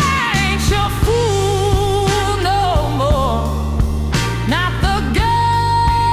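Slow soul-blues ballad: a steady drum beat under a lead melody with wide vibrato and bent, sliding notes, ending on a long held high note near the end.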